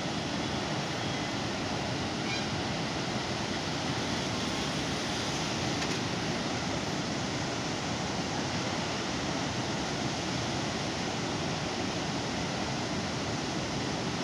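Floodwater pouring through the open spillway gates of Srisailam Dam into the plunge below: a steady, unbroken rush of falling water.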